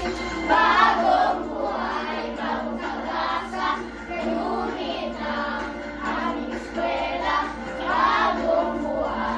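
A song with a group of voices singing together, children among them, over a steady backing accompaniment.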